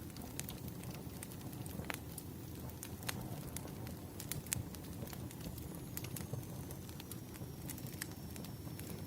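Wood fire crackling, with irregular sharp pops and snaps over a steady low rumble of burning logs.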